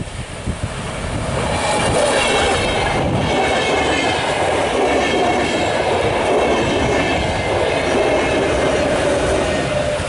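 Finnish InterCity double-deck train, pushed by a VR Class Sr2 electric locomotive, running past close by. The rumble and clatter of its wheels on the rails swells over the first two seconds, then holds loud and steady, with steady squealing tones over it.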